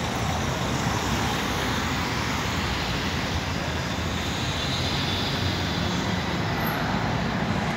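An airplane flying by, a steady rushing engine noise, over city street traffic.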